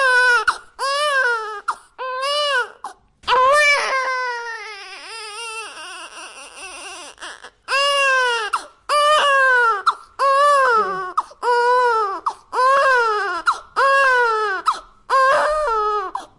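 An infant crying in short, repeated wails, about one a second, each rising and then falling in pitch. A few seconds in, one longer wail drags out, falls and fades before the quick cries start again.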